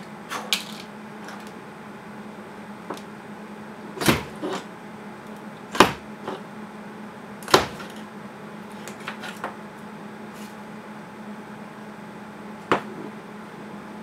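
Thin power-supply wires being stripped and handled: a handful of sharp snaps and clicks as the insulation is pulled off, the loudest about six and seven and a half seconds in, over a faint steady hum.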